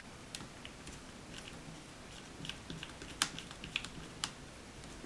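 Scattered light clicks and taps at an irregular pace, with a few sharper ones after about three seconds: small plastic and metal laptop screen parts being handled and fitted together by hand.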